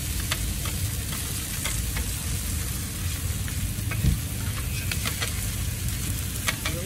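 Burger patties sizzling on a steel flat-top griddle, with a metal patty press and spatula scraping and clicking against the plate. One louder knock comes about four seconds in.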